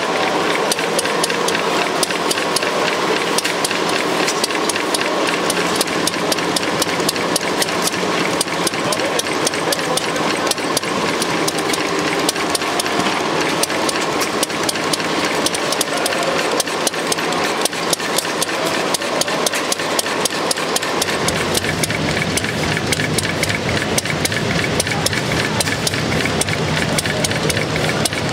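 Small Deutz stationary engine running steadily at low speed with a rapid, even clatter, belt-driving a generator. Its low revs make the generator's voltage waver. About 21 s in, a deeper running sound joins the clatter.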